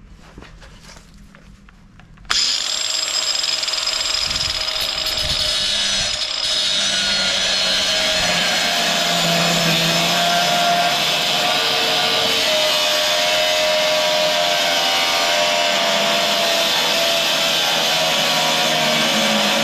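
Angle grinder with a cutoff wheel switching on a little over two seconds in, then running steadily with a high whine as it cuts a corner off a clamped piece of steel angle.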